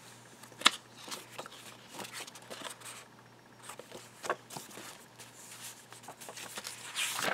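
Paper being handled: a vintage greeting card is opened out and the pages of a handmade paper journal are turned, with light rustling. A sharp tap or snap comes less than a second in, another about four seconds in, and there is a busier rustle of turning pages near the end.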